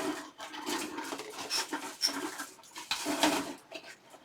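Scratchy rustling and light clicks of small model-kit items being handled at the workbench, like rummaging for the kit's string.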